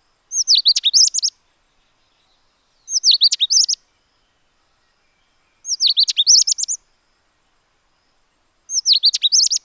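Indian robin calling: four short phrases of quick, high chirping notes, each about a second long and about three seconds apart.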